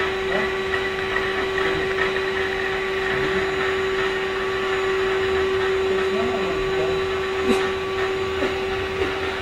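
Vacuum cleaner running with a steady whine, with a few light knocks in the last two seconds.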